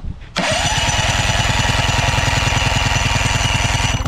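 Nissan 18 hp two-stroke outboard engine being turned over steadily for a compression test on its bottom cylinder, with a fast, even pulsing. It starts about a third of a second in and stops just before the end. The gauge shows about 125, the same as the top cylinder.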